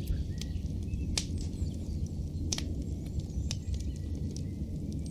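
Campfire sound effect: a steady low rumble with a few sharp, sparse crackles.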